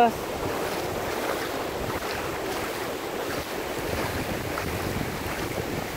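Steady rush of small surf waves washing onto a sandy beach, with some wind on the microphone.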